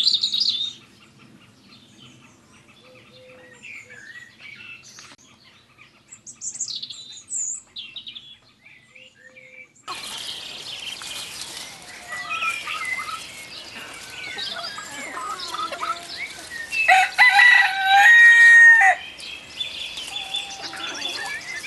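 Faint, scattered songbird chirps, then a flock of chickens clucking and calling. A rooster crows once, the loudest sound, for about two seconds a few seconds before the end.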